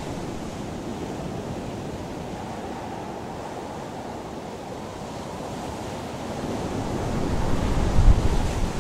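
Steady rushing noise of sea surf and wind, swelling louder with a low rumble near the end.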